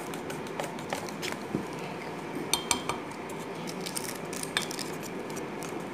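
Metal wire whisk stirring thick cake batter, clicking and clinking irregularly against the bowl, with a few louder ringing clinks around the middle. The batter is being whisked to break up its lumps.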